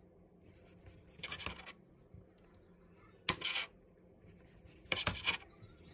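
Chef's knife slicing raw abalone on a cutting board: three short cuts, about one every two seconds, each a brief scrape of the blade through the flesh onto the board.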